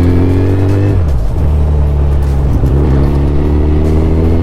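Suzuki Hayabusa's inline-four engine pulling under acceleration while riding: the revs climb, fall sharply at an upshift about a second in, hold steady, dip again just before three seconds in, then climb once more.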